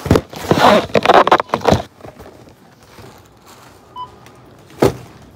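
Loud rustling and bumping of a phone being handled against its microphone for about two seconds, then a low background. A short beep comes about four seconds in, and a sharp click near the end.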